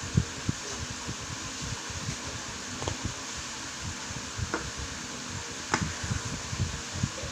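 Steady fan-like hiss with frequent low bumps and a few short sharp clicks, the sound of something being handled close to the microphone.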